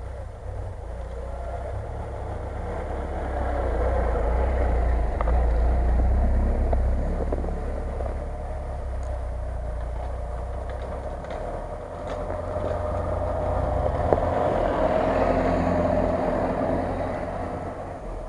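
Off-road 4x4 vehicles driving past one after another, their engines growing louder as each comes up and passes, about five seconds in and again around fifteen seconds.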